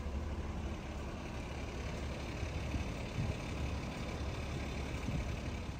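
Steady low rumble of vehicle engine and street background.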